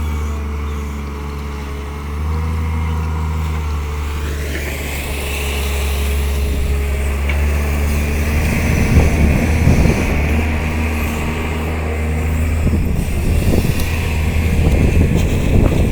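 Tata Hitachi 130 excavator running. A steady diesel drone is joined about four seconds in by a rising higher whine that then holds. Rough, crackling noise comes and goes through the second half.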